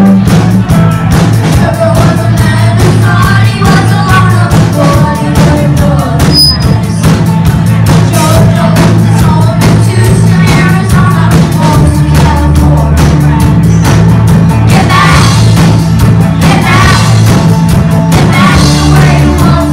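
Live rock band playing loud with a steady drum-kit beat, electric guitars, bass and keyboard, and a lead singer singing into the microphone.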